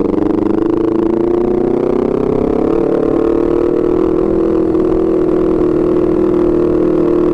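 Honda CBR250RR with an aftermarket R9 GP racing exhaust, its loud exhaust running at low, steady revs while riding slowly; the pitch edges up a little about two seconds in and then holds.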